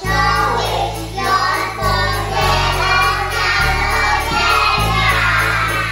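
A group of young children singing a Christmas song together over a recorded backing track, its bass line changing note every second or so.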